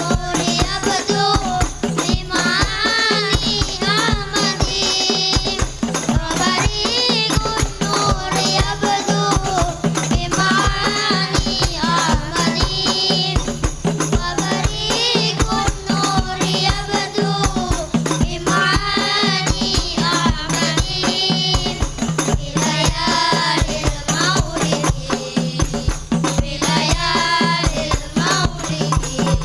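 Devotional singing in a wavering, melismatic line over fast, continuous hand percussion with a rattling jingle.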